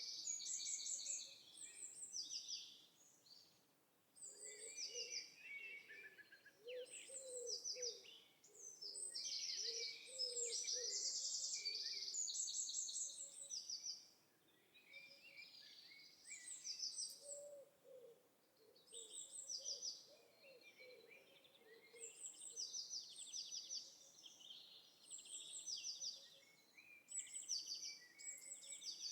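Birdsong: several birds singing short, rapid high trills again and again, with lower calls underneath.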